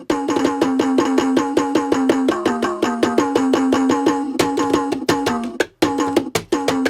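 Electronic toy bongo drums sounding synthesized bongo hits in a rapid, even run of about nine strokes a second, with a brief break a little before the end.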